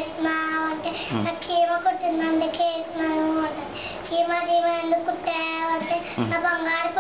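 A young boy singing a song in a clear child's voice, holding long steady notes.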